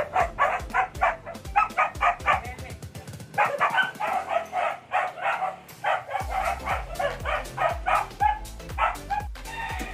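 A dog yapping in quick runs of short, high barks, about three or four a second, over background music whose steady beat comes in about six seconds in.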